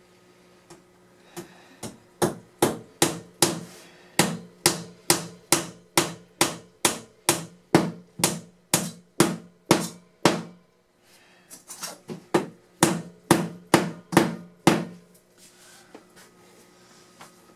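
A 1950s vintage hammer driving number 4 finishing nails into wooden trim. There is a steady run of about twenty blows, roughly two a second, then a short pause and about ten more.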